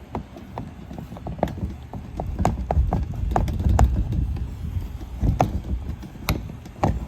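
Handling noise from a handheld camera outdoors: a low rumble with scattered, irregular clicks and knocks.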